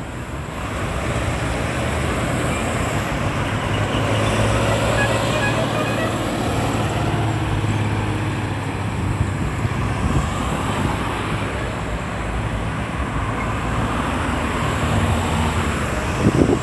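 Road traffic passing, with a vehicle engine's low hum close by for several seconds before easing off.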